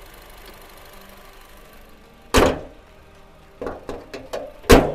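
Car bonnet of a Honda Freed slammed shut with a loud bang, followed by a few lighter knocks and a second loud bang near the end.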